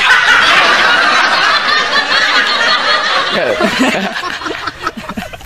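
Loud laughter that dies away over the last couple of seconds.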